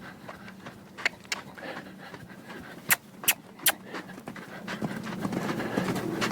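A horse moving around loose: a few sharp clicks like hooves striking hard ground, then a growing scuffle of movement and breathing toward the end.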